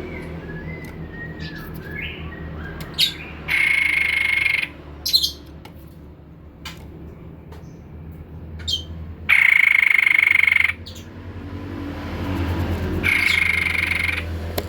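White-chested babbler calling: scattered short sharp notes and clicks, and three times a loud, buzzy, even-pitched note lasting about a second.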